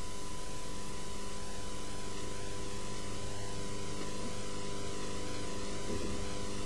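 Steady hiss and low hum with a constant thin tone, the background noise of an old video-tape recording; no distinct kitchen sound stands out.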